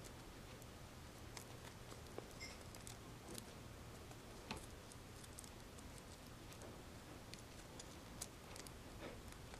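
Faint, scattered small clicks and crinkles of a folded paper hexahexaflexagon being flexed between the fingers, over a low steady room hiss.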